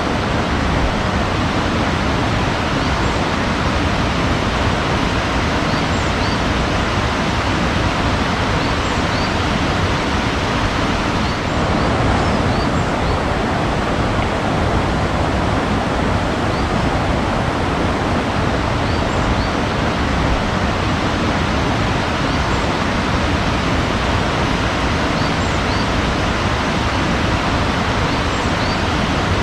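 Steady rushing water, an even, unbroken noise, with faint high bird chirps scattered throughout.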